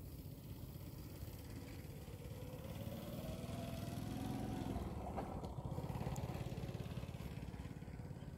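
A motor vehicle's engine passing by: it grows louder to a peak about halfway through, its pitch rising, then falls in pitch and fades away.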